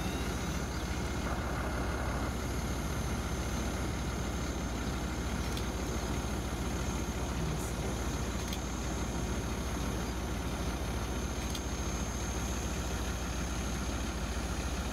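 Car engine idling steadily, heard from inside the car as a low, even rumble, with a few faint clicks.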